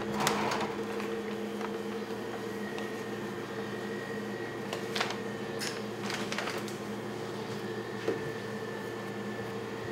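Steady hum of kitchen equipment, with a stainless-steel drawer being pulled open at the start and a few short knocks and rustles as a plastic bag of flour is handled and emptied into a tray.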